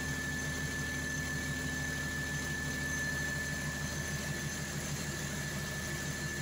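Perkins diesel generator engine running steadily at about 1540 rpm, a constant low drone with a thin steady high-pitched tone above it.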